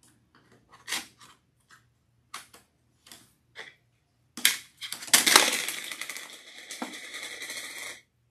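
Plastic game discs clacking together as they are handled and loaded into a plastic dispenser, a few separate clicks at first. About four and a half seconds in, a continuous rattling clatter starts and runs for about three and a half seconds before stopping suddenly.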